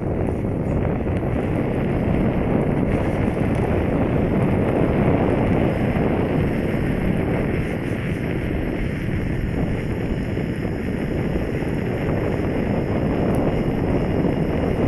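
Steady rushing wind noise on the microphone of a rider moving along an asphalt road on a KingSong KS16X electric unicycle, mixed with the rolling noise of the wheel.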